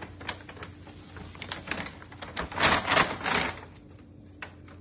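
Quick run of clicks and scratchy rustling, densest and loudest a little past halfway: a pet parrot scrabbling as it is handled and tipped over.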